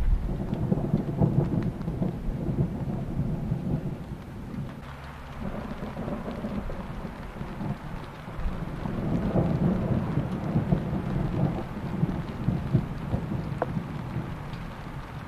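Low rumble of distant thunder rolling in long swells, loudest at the start and building again about nine to eleven seconds in.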